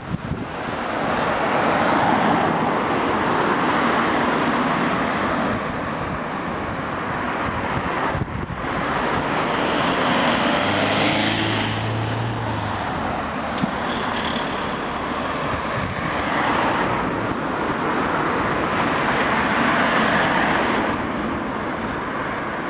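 Cars passing one after another on a road, each a rising and falling swell of tyre noise, about five in all. The loudest comes near the middle, with a low engine hum.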